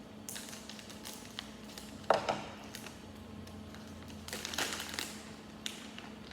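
Plastic minifigure blind bag crinkling as it is torn open and handled, with light clicks and taps of small plastic Lego pieces; a sharp tap about two seconds in and a burst of rustling near the end.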